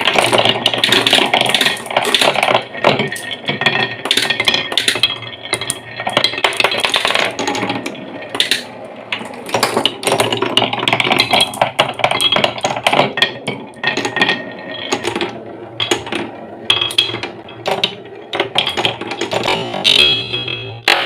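Marbles rolling and clattering down a wooden marble run, with a quick, irregular series of clicks and knocks as they hit the wooden blocks and track.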